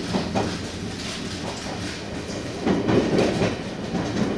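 Train wheels rumbling and clacking over rail joints and points as a train runs slowly through a station. There are a few clacks just after the start and a denser run of them about three seconds in.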